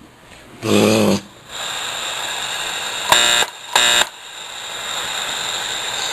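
Sylvania solid-state AM/FM radio switched on and playing through its speaker: a loud buzzy burst about a second in, then a steady static hiss broken by two short loud buzzy bursts near the middle.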